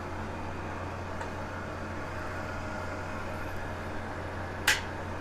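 Steady low electrical hum with an even hiss of room background, and one sharp click near the end.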